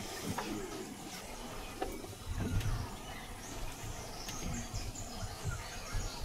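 Rainforest-clearing ambience: scattered bird calls and insect chirps over a low rumble, with a few faint clicks.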